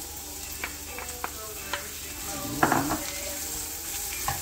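Chopped onion sizzling as it goes into hot oil with cumin seeds in a frying pan, with sharp taps of a wooden spatula against the bowl and pan and a louder scrape about two and a half seconds in.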